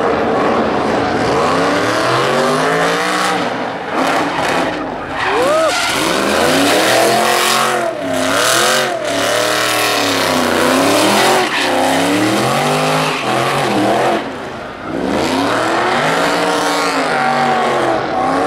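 Cobra-style roadster doing donuts: the engine revs up and down again and again while the rear tyres spin, squeal and skid, burning rubber.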